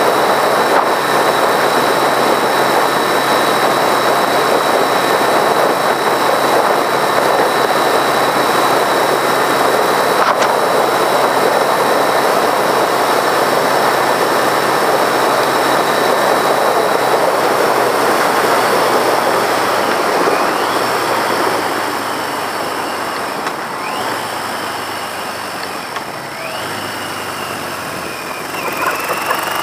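1982 Yamaha XJ650's air-cooled inline-four engine running at road speed under heavy wind rush. About twenty seconds in, the rush eases and the engine note comes through more clearly, shifting pitch in steps as the bike slows and changes gear. It picks up again near the end.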